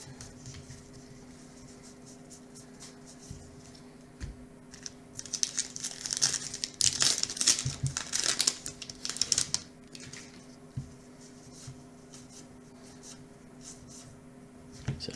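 Wrapper of a baseball card pack torn open and crinkled by hand, loud and crackly for several seconds starting about five seconds in. Softer handling and sliding of the cards comes before and after it.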